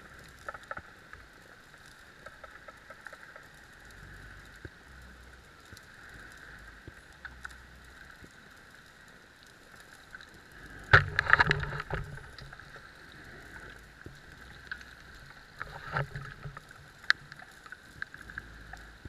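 Underwater ambience picked up by a dive camera: a steady hiss with faint scattered crackles, broken by a louder rushing, rumbling burst about eleven seconds in and a shorter one a few seconds later.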